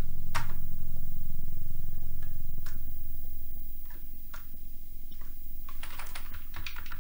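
Sharp clicks: a few scattered ones, then a quick run near the end, like taps on a home-computer keyboard. They sound over a steady low hum that drops away about halfway through.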